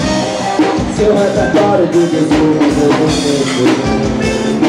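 Live band music with a drum kit keeping a steady beat under a melody and a singing voice.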